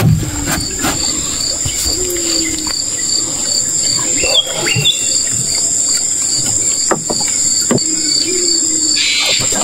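Insects calling steadily from the riverbank vegetation: a continuous high drone with a pulsing chirp beneath it, about three pulses a second. A few sharp knocks and taps come from the barramundi being handled on the wooden planks of the canoe.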